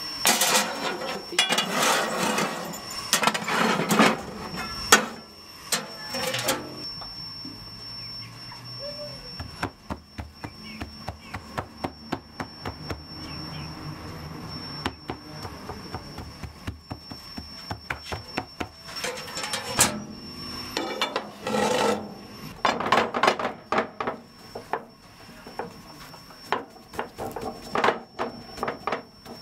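Hand-worked kitchen sounds. First a metal frying pan holding a baked Ossetian pie scrapes and rattles on the stovetop grate for several seconds. Then come quick, soft taps and rubbing as floured fingers pat and press the pie dough flat.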